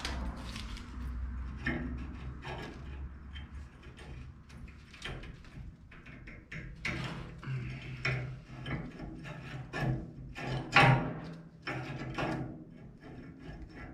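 Irregular small metal clicks and clinks as a clip is worked into the steel hitch bracket on a dump cart's tongue, with one sharper clank about three-quarters of the way through.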